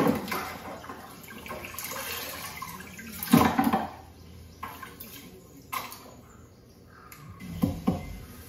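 Water splashing and pouring over cut mutton bones as they are washed, with a few short sharp knocks.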